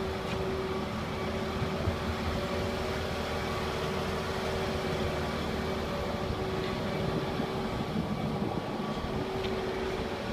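A machine running steadily, a constant low drone with a steady hum over it.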